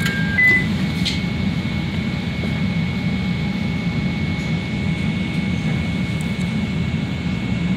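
CTA 5000-series Bombardier rapid-transit car getting under way: the door chime's last note, a click about a second in, then a steady high whine over the car's low rumble as the train starts to pull out.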